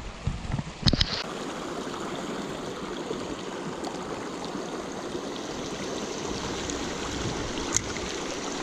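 Small creek running with a steady rush of water. A few short knocks sound about a second in.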